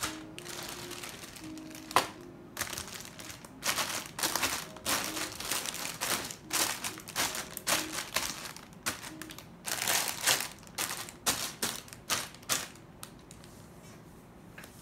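Sealed plastic bags of Lego pieces crinkling and rustling in irregular bursts as hands shuffle and spread them across a table. The handling stops about two seconds before the end.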